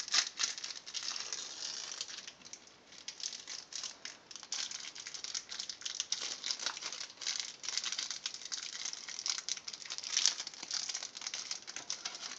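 Crinkly plastic card-pack wrapping being peeled open and handled by hand, in a run of irregular crackles and rustles.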